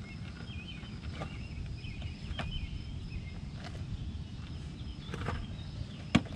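A car wheel and tyre being pulled off the hub and handled, with a few light knocks and one sharp knock shortly before the end. Faint chirping sounds over a steady low outdoor rumble.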